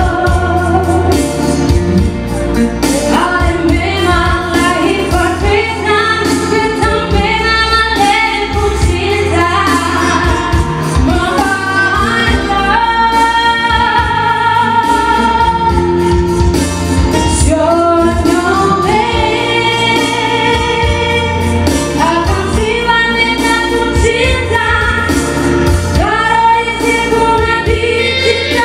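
A woman singing with live band accompaniment, holding long sustained notes that slide between pitches over a steady bass.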